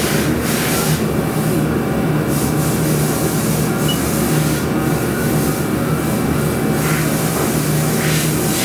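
Haas DS-30SSY CNC lathe running under power: a steady mechanical hum with a low drone and faint steady tones, with short swells of hiss now and then as the tool turret moves.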